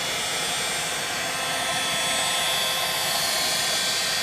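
Handheld hot-air gun blowing steadily, a constant rushing air noise with a faint motor whine, heating the tablet's screen bezel to soften the adhesive.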